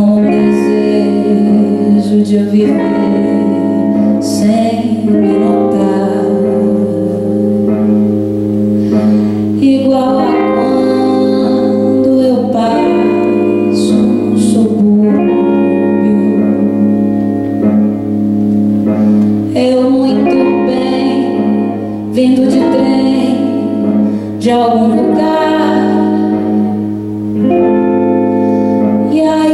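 A woman singing a slow song with a single guitar accompanying her, amplified through a hall's sound system.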